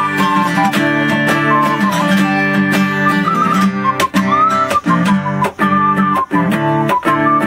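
Acoustic guitar strumming a quick, rhythmic accompaniment under a high held melody that slides between notes, played on a double ocarina.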